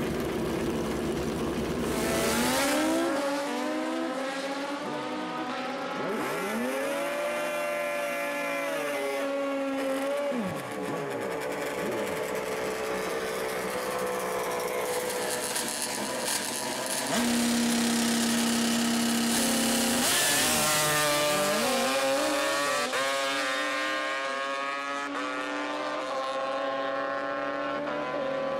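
Two-stroke drag-racing motorcycles at full throttle down the strip: high engine notes climb steeply and drop back at each upshift, several times over.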